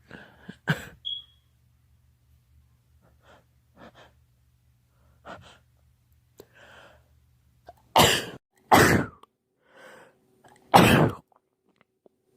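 A man sneezing from a pollen allergy: a short sneeze just under a second in, a few quick faint breaths, then three loud sneezes near the end, the first two close together.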